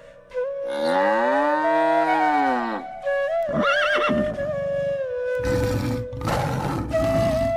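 Animal-call sound effects over background music that holds a flute-like tone: a long call rising and falling in pitch, then a short wavering high call about three and a half seconds in, then a rough, noisy call from about five and a half seconds.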